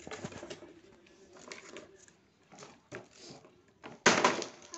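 A chicken pecking rice grains off a concrete floor: a scatter of short sharp taps of its beak. Near the end comes a loud, brief burst of noise.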